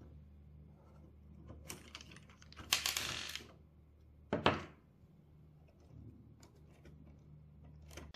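Light clicks and knocks of 3D-printed plastic car parts being handled, with a brief scraping rustle about three seconds in and a sharper knock about a second later, over a low steady hum.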